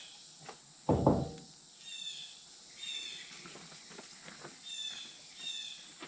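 Birds chirping in short high calls about once a second, with one dull thud about a second in and a few light clicks of tools being handled.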